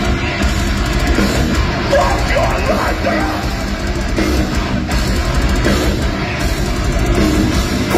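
Heavy metal band playing live, with distorted electric guitars and a pounding drum kit, heard from within the audience.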